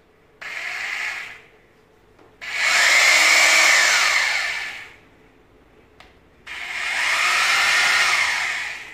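INGCO rotary hammer drill run in three trigger pulls, the first short and quieter, the next two longer. Each time the motor's whine rises as it spins up and falls as it winds down.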